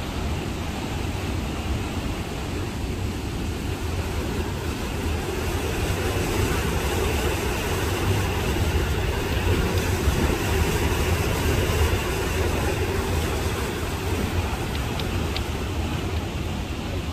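Maligne River rushing through a narrow limestone gorge: a steady rush of churning water, swelling a little louder in the middle.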